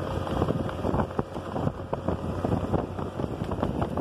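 Wind buffeting the microphone over the low rumble of a vehicle driving fast on a dirt track, with many irregular clicks and rattles.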